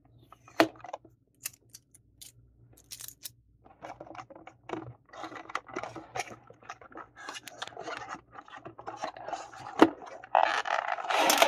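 A cardboard card-deck box being handled and opened by hand. Light scattered taps and scratches give way to steady rustling and scraping of cardboard, with a sharp click near the end and then a louder spell of cardboard scraping as the flaps are pulled open.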